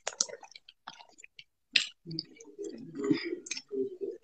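Someone eating close to a phone's microphone: scattered soft mouth clicks and smacks, then low, muffled chewing sounds from about two seconds in.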